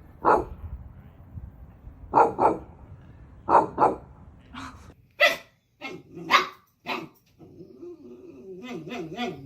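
A dog barking in short single and double barks, then more barks and a drawn-out, wavering vocal sound from about three quarters of the way through.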